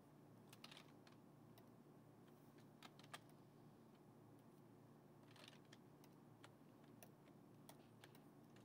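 Near silence with faint, scattered clicks of a computer keyboard and mouse, one or two every second or so, over a steady low hum.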